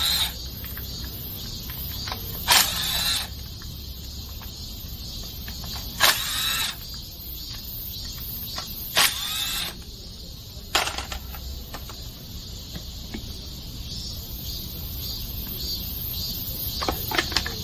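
Cordless drill-driver spinning out small hex-head bolts from a scooter's plastic drive-belt filter cover: a handful of short whirs a few seconds apart, each lasting about half a second. A light clatter of clicks near the end as the cover is worked loose.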